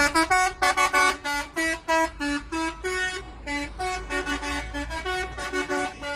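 Truck telolet horn playing a quick tune of short, separate notes, about four or five a second, jumping between pitches.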